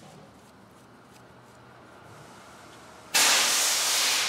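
Compressed air hissing out in a sudden loud burst about three seconds in, lasting just over a second before it dies away, after a few seconds of faint tool handling.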